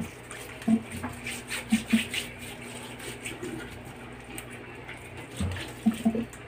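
Hands scrubbing coarse salt over the skin of a whole raw chicken: soft wet rubbing and gritty scraping, broken by a few dull squelching bumps, over a faint steady hum.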